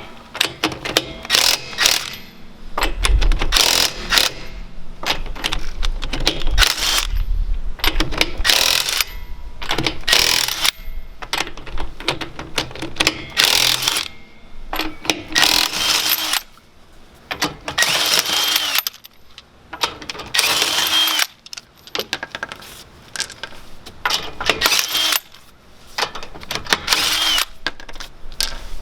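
Earthquake XT 20V 1/2-inch cordless impact wrench hammering on lug nuts in repeated short bursts, with metallic clinks between them.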